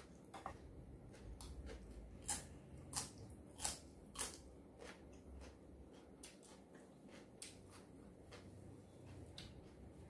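A person chewing crunchy raw vegetables with the mouth close to the microphone: a series of crisp crunches, loudest from about two to four seconds in, then softer ones.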